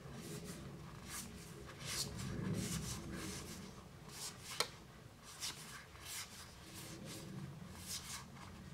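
Tarot cards handled one by one, their edges sliding and rubbing against each other in soft, irregular papery swishes, with one light snap about four and a half seconds in.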